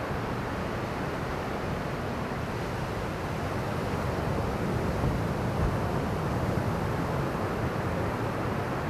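Steady rushing rumble of ocean surf, stirred up by swell from a distant typhoon, swelling a little about halfway through, with wind buffeting the microphone.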